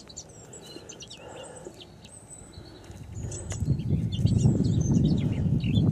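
Small birds chirping in short, repeated high calls. About three seconds in, a louder rough rustling and scuffing noise starts up beneath them and keeps going.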